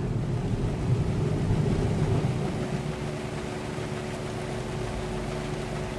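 Automatic rollover car wash machinery running, heard from inside the car: a steady low rumble, with a faint steady hum joining about halfway through, as the wash moves toward the windscreen.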